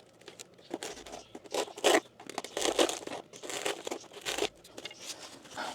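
Crinkling and tearing of material being handled up close, in irregular bursts that are loudest in the middle.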